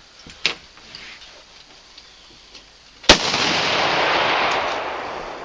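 A single loud shotgun blast about three seconds in, fired at a duck over the water. A rushing noise follows it and fades away over about two seconds.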